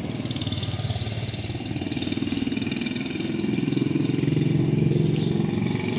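A small engine running with a fast, even firing pulse, growing louder from about two seconds in and loudest around five seconds before easing off.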